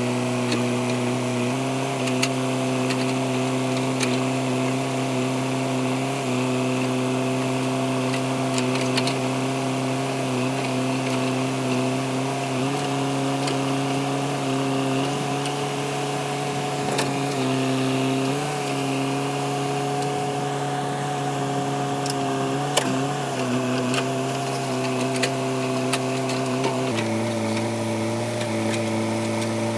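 JCB 3DX backhoe loader's diesel engine running steadily. Its pitch shifts slightly several times and drops a little about 27 seconds in, with a few faint clicks.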